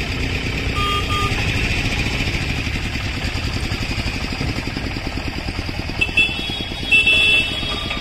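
A vehicle's engine idling steadily, with short high-pitched tones about a second in and again about six and seven seconds in.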